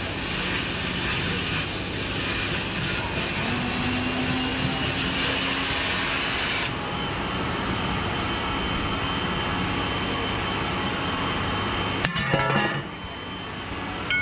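Oxy-fuel cutting torch running with a steady loud hiss as it cuts through galvanized sheet steel. The high part of the hiss drops off about halfway through, and a short clatter comes near the end.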